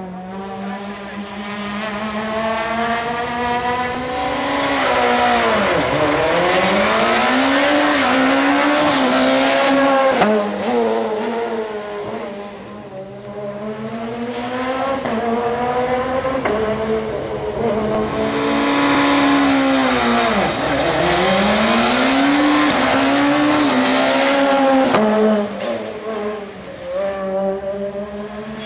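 Rally car engines revving hard on a tarmac special stage. The revs climb, plunge sharply and climb again, twice (about 6 s and 20 s in), as cars brake and downshift and then accelerate away.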